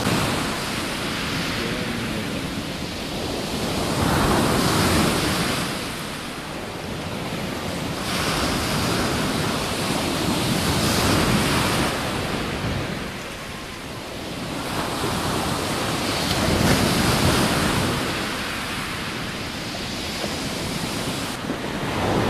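Sea waves breaking and washing up a shingle beach, the surf swelling and fading in slow surges about every six seconds.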